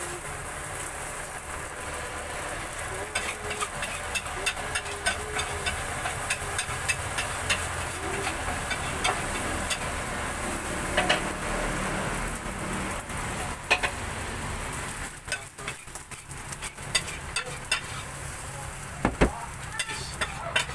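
Fried rice frying in a wok with a steady sizzle, while a metal spatula clanks and scrapes against the wok in quick, irregular strikes. One strike near the end is louder.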